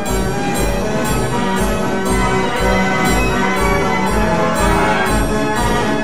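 Wurlitzer Style 165 band organ playing a march from its music roll: brass-toned pipes carry the tune over a steady bass beat about twice a second.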